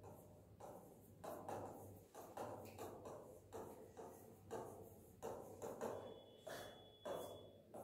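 A faint series of light taps, about one to two a second and irregularly spaced, each with a short ring after it.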